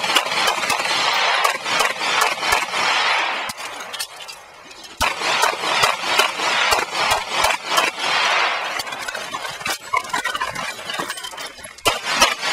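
Rapid pistol fire from a CZ SP-01 Shadow 9mm: fast strings of shots with their echo, broken by a quieter lull a few seconds in and a thinner stretch near the end before quick shots pick up again.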